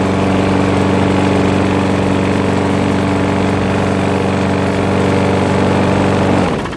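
Bolens push mower's Briggs & Stratton engine running steadily at a constant speed with its freshly cleaned air filter, which the owner says runs better with no black smoke. The engine cuts off near the end.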